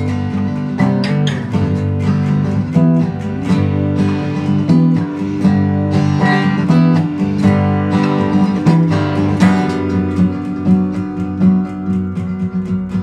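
Instrumental music: acoustic guitar plucked and strummed, with steady sustained bass notes underneath.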